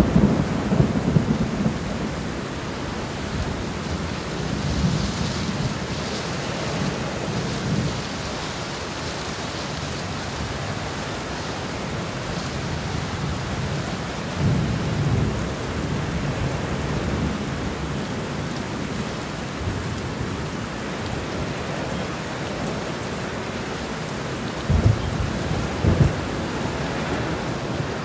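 Summer thunderstorm: steady rain with thunder rumbling low at the start and again about halfway through, and two short, sharper low thumps near the end.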